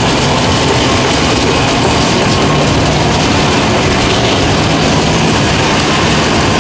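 Mud truck on tall tractor tires, its engine running loud and steady as the truck churns through a mud pit.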